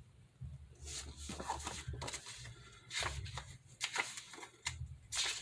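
Paper booklet pages being handled and turned: a run of short, irregular rustles and light taps over a faint low hum.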